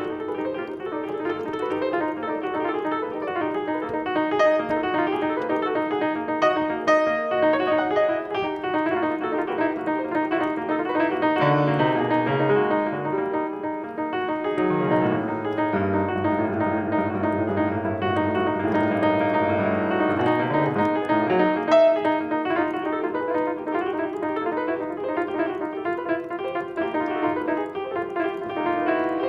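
Piano playing an unbroken flow of many notes at once, with low bass notes coming in around the middle.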